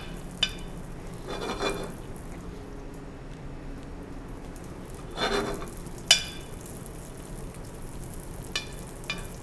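Bacon sizzling in a sauté pan over medium heat as it crisps in its rendered fat, with a utensil stirring it and clinking against the pan a few times.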